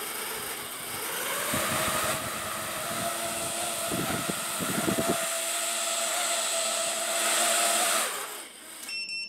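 Small racing quadcopter's brushless motors and propellers whirring in a hover, the motors surging erratically between idle and near full throttle. It doesn't sound quite right: the builder's best guess is that the 3D-printed carbon fiber nylon arms flex enough to throw the motor control into oscillation. The motors cut off about eight seconds in.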